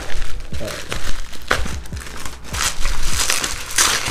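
Plastic bubble wrap being crinkled and pulled off a small cardboard box: irregular crackling rustles, with louder crinkles near the middle and toward the end.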